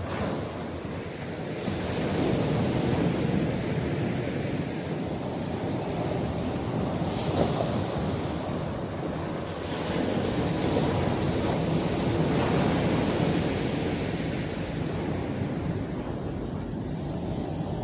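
Sea surf breaking on the shore, a continuous wash that swells and eases every few seconds, with wind buffeting the microphone.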